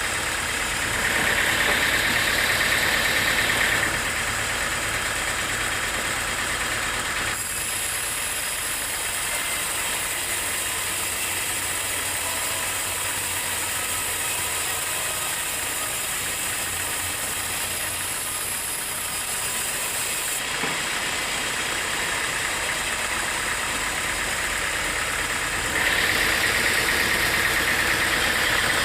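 Sawmill machinery running steadily, with a louder, higher-pitched stretch about one to four seconds in and again near the end.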